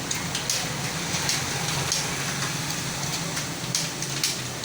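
Computer keyboard keys clicking irregularly during a typing speed test, over a steady background hum.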